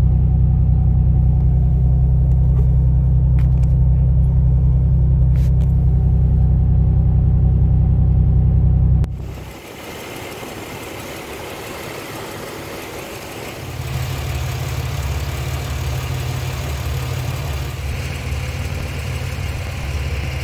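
Car engine idling just after a cold start on polyurethane-filled engine mounts, a steady low hum heard from inside the cabin; the owner notes that it is not vibrating the dash. About nine seconds in, the sound cuts to the engine bay, where the idle carries more hiss, and the low hum comes back stronger a few seconds later.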